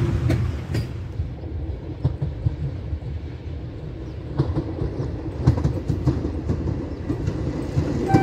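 SM30 diesel shunting locomotive running as it approaches, hauling passenger coaches. Its engine rumbles steadily, and now and then a sharp click comes as the wheels cross rail joints.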